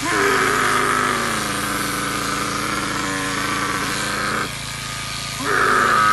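Electric shearing handpiece cutting through thick camel wool: two cutting strokes, a long one of about four seconds and a shorter one starting near the end, each with the motor's pitch dropping as the blade bites into the fleece and rising again as it comes free.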